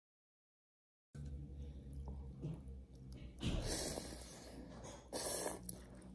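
Someone eating hot ramen noodles: two short, airy mouth sounds over a faint low room hum, starting about a second in.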